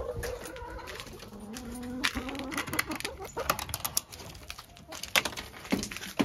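Backyard hens clucking, with the clicks and knocks of the coop run's metal latch and wooden door being worked open, mostly from about two seconds in.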